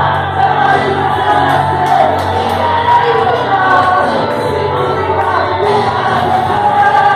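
Music with singing: voices singing together over steady low bass notes.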